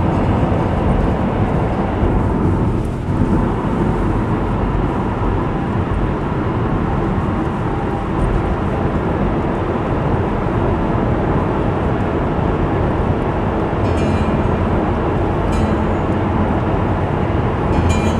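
Steady road and tyre noise with engine hum, heard from inside a car's cabin while driving at highway speed through an expressway tunnel.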